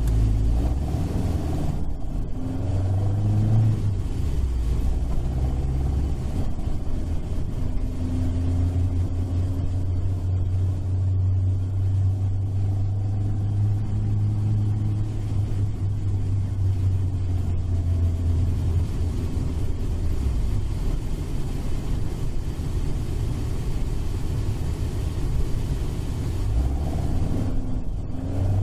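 Toyota 4A-G 5-valve twin-cam inline-four running in an AE86 Trueno, heard from inside the cabin while driving. The revs climb in the first few seconds and again near the end, with a steady cruise in between.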